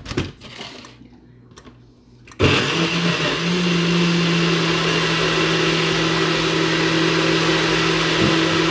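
Personal bullet-style blender: the cup clicks into place on the motor base, then about two and a half seconds in the motor starts with a jump in loudness. It runs steadily, blending banana, berries and milk into a smoothie.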